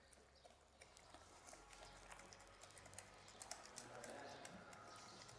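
Faint, rapid clicking of a wire whisk against a glass bowl as flour and water are beaten into a batter, starting about a second in and getting busier toward the end.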